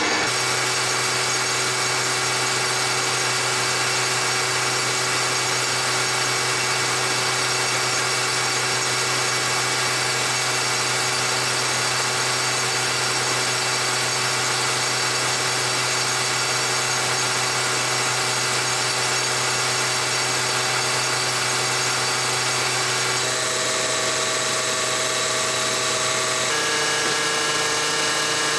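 Bacharach diesel injection pump test stand running steadily at about 2000 rpm, driving a VE rotary injection pump that feeds a set of PowerJet Stage 2 injectors during a flow test. The machine's pitch steps up twice in the last few seconds and ends higher.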